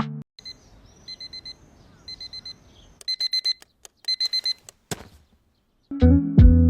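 Digital alarm clock beeping in quick groups of four, about one group a second, louder in the last two groups, then stopping. A short rustle or click follows just before the music returns.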